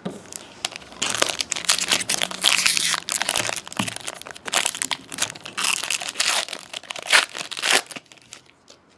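Plastic-foil wrapper of a trading card pack crinkling and tearing as it is opened and handled, in a dense run of crackles that stops shortly before the end.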